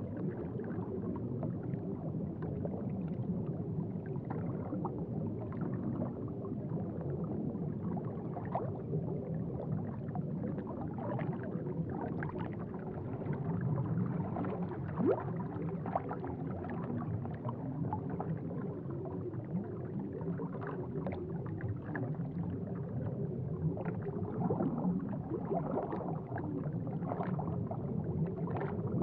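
Aquarium water bubbling and gurgling: a steady low churn with frequent small irregular pops and plinks.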